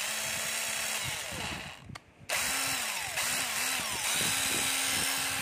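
Cordless impact driver motor running free on the trigger, a steady whirring that cuts off about two seconds in and starts again a moment later. The tool runs properly.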